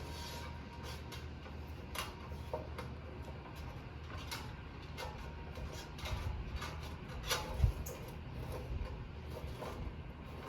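Hands working an electrical cable and fishing wire on the loader frame: scattered clicks and scrapes over a steady low hum, with a thump about three-quarters of the way through.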